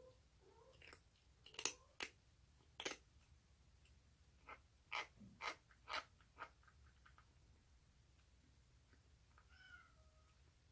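Baby orange tabby kitten eating: a run of sharp crunching clicks in the middle, with short, faint, squeaky vocal sounds near the start and again near the end, the odd noises this kitten makes while it eats.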